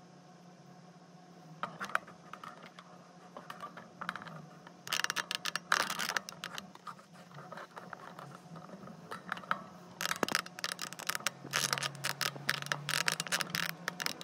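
A wooden easel and painting panel being handled and repositioned, giving clusters of clattering knocks and scrapes about five seconds in and again from about ten seconds on, over a steady low hum.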